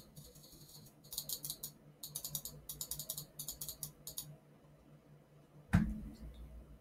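Several quick runs of small plastic clicks from a computer mouse's scroll wheel being turned notch by notch. Near the end comes a single dull thump, the loudest sound, over a faint steady hum.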